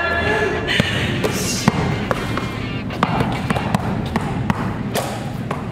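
A basketball dribbled on an indoor court floor: a string of sharp bounces at uneven intervals as the ball handler works against a defender.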